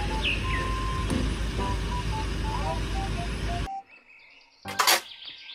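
Steady outdoor rumble of heavy vehicles with a few bird chirps and a faint tune of short tones, cutting off abruptly after about three and a half seconds. Then comes a single sharp knock from a plastic toy truck being handled on artificial grass.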